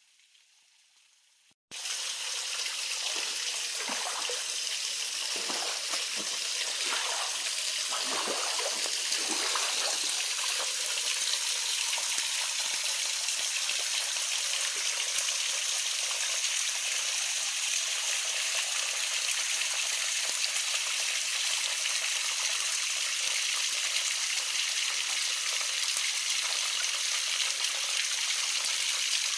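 Steady rushing water of a mountain creek and falls, starting abruptly about two seconds in after near silence.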